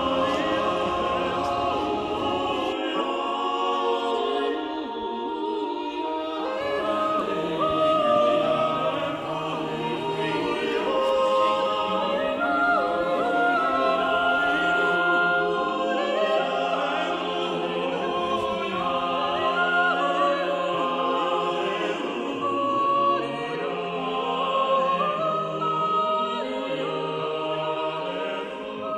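A choir singing in several parts, with long held notes moving from chord to chord.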